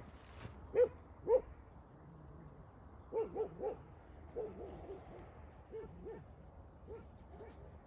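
Dogs barking: a string of short barks, two loud ones about a second in, a quick run of four about three seconds in, then fainter, spaced-out barks.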